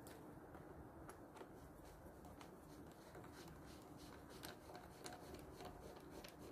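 Near silence with a few faint, scattered clicks of tools and small metal parts being handled.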